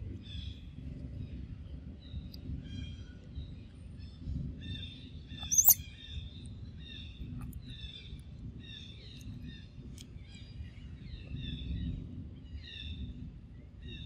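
Forest birds calling, short chirping phrases repeating about once a second over a low background rumble. About halfway through there is one brief, sharp, high-pitched squeak, the loudest sound.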